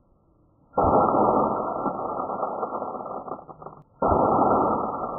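Daisy Red Ryder BB gun fired twice, about three seconds apart, each shot a sudden sharp report. Each shot is followed by a couple of seconds of loud rattling and clicking as the gun is shaken and its lever worked to load the next BB.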